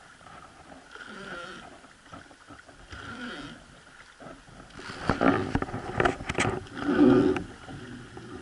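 Wooden boat's long oar creaking against its mounting with each rowing stroke, about every two seconds, over water washing along the hull. The strokes grow much louder about five seconds in, with splashing.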